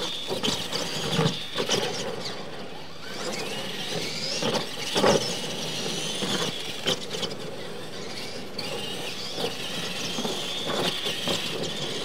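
Radio-controlled monster trucks racing on dirt: a high whine from their electric motors and gears rising and falling with the throttle, with several sharp thumps as they land off the jumps.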